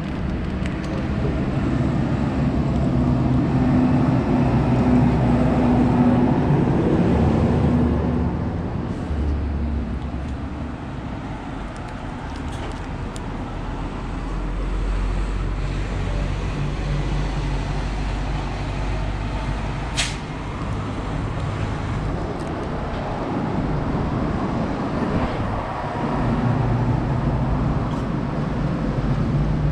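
Road traffic: vehicles passing along the road, their engine hum swelling and fading away. There is one sharp click about twenty seconds in.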